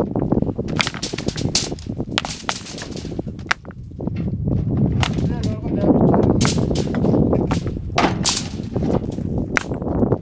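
Rough stones being thrown down from a tractor trailer, landing with many irregular sharp clacks and knocks of stone on stone, over a low steady rumble.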